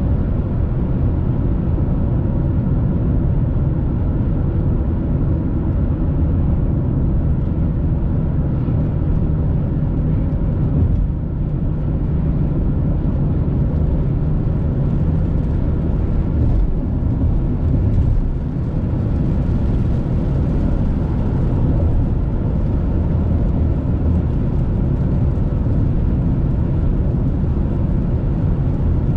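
Steady low rumble of a car's road and engine noise heard from inside the cabin while cruising at highway speed.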